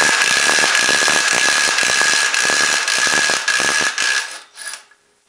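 Cordless impact wrench hammering to loosen the primary clutch bolt of a Can-Am Outlander Gen 2 ATV: a rapid hammering with a steady high whine that stops about four seconds in, followed by a few light clicks.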